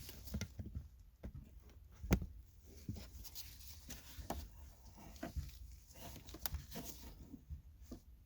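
Irregular small clicks, knocks and rustles of hands working a car's gear shift lever in its ball-and-socket mount, pulling it back to line it up for the locking pin, with one sharper knock about two seconds in.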